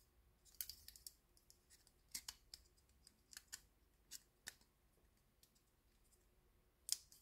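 A dozen or so faint, irregular small plastic clicks and scratches: fingers pressing and sliding the plastic tray and the plastic retaining clip that holds an M.2 SSD in its enclosure, working it loose to eject the drive.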